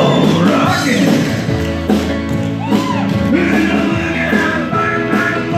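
Live band playing an upbeat boogie-woogie rock and roll number with electric guitar and a singing voice.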